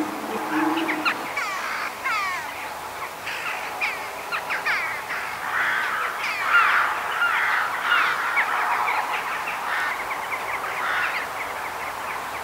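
A flock of birds calling at once: many short, overlapping calls that slide downward in pitch, busiest in the middle.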